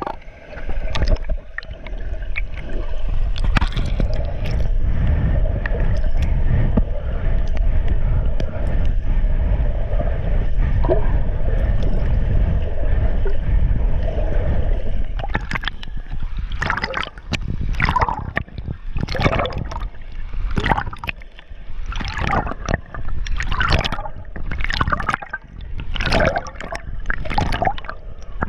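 Swimming-pool water heard through a submerged camera: a steady, muffled low rumble of water rushing past the microphone, which about halfway through turns into rhythmic surging splashes of swimming strokes, a little more than one a second.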